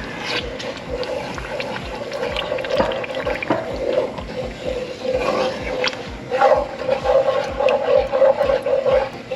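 Wooden spoon stirring crushed tomatoes into hot garlic and oil in a pot: wet squelching and sloshing with scattered light clicks of the spoon against the pot, over a steady hum that grows louder in the second half.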